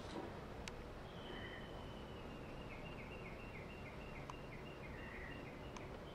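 Faint background noise with a bird calling a long, even run of short high notes, about three a second, starting about a second in. A few sharp clicks are scattered through it.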